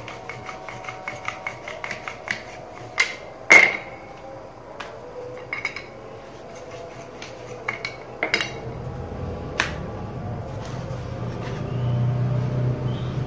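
Wooden rolling pin rolling phulka dough on a marble countertop, clicking against the stone several times a second. About three and a half seconds in comes a sharp knock, followed by a few scattered knocks, and a low hum builds near the end.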